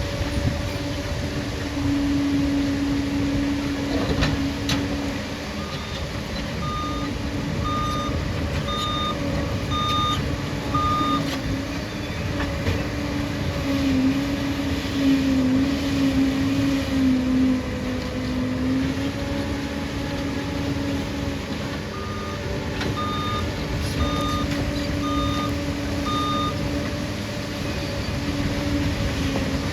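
Liebherr crawler bulldozer's diesel engine running steadily under work, its pitch wavering with load. Its reverse alarm beeps about once a second in two runs, about six beeps and later about five, as the dozer backs up.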